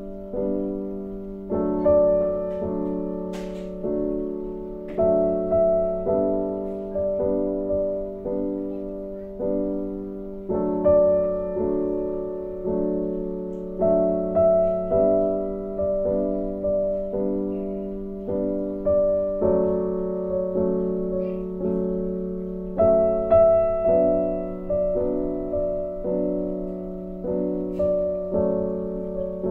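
Background piano music: a slow melody with notes and chords struck about once a second, each fading away.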